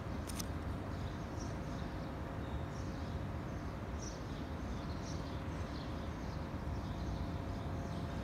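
Outdoor background noise: a steady low rumble with a faint steady hum, and many faint, short, high chirps scattered throughout. One sharp click just after the start.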